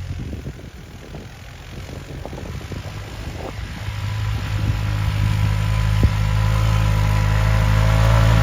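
A vehicle engine running at a steady pitch, getting steadily louder through the second half, as if it is coming closer or pulling harder. There is a single sharp click about six seconds in.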